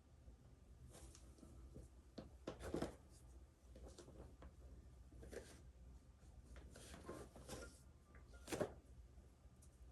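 Faint rustling of clothing and soft knocks as a person goes through full bows (prostrations) on the floor. The loudest knock comes about eight and a half seconds in, over a faint low room hum.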